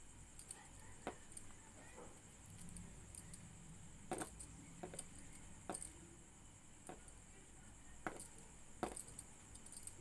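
Faint, irregular light clicks and clinks, about a dozen, from hands working a crochet hook through yarn.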